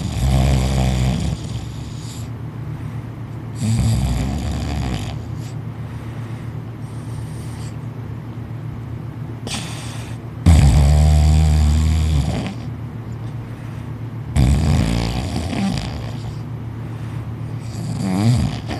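A man asleep on a couch snoring loudly, one long snore every few seconds; the loudest comes about ten seconds in.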